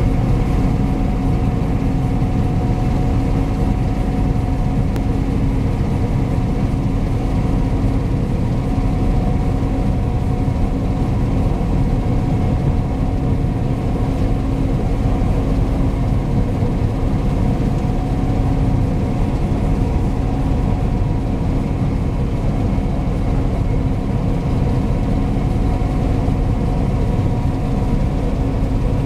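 John Deere T670i Hillmaster combine harvester working in oilseed rape, running steadily as one constant drone with several steady whining tones over it.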